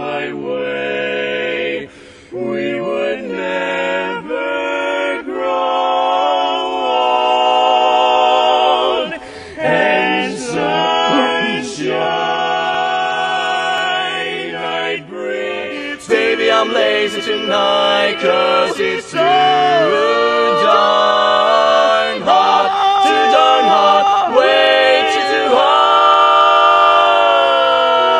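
Barbershop quartet singing four-part a cappella harmony in men's voices, with short throat-clearing sounds from one singer mid-song around the middle. About halfway through, the recording cuts to another quartet singing, louder.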